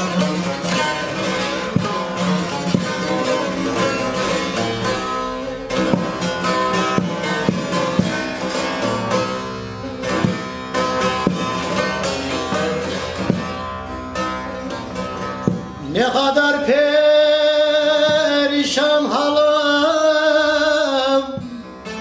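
Divan sazı, a long-necked bağlama with a 46 cm carved mulberry bowl, strummed in rapid, busy runs. About sixteen seconds in, a voice joins, singing a long, wavering held line over the strings for several seconds.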